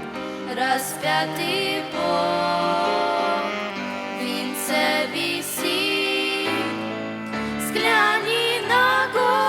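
Slow Christian song: a held melody with vibrato, sung over sustained instrumental accompaniment.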